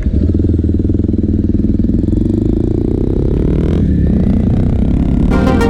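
250cc single-cylinder motorcycle engine riding along, its revs climbing for about a second and then dipping briefly about four seconds in before pulling on. Electronic music comes in near the end.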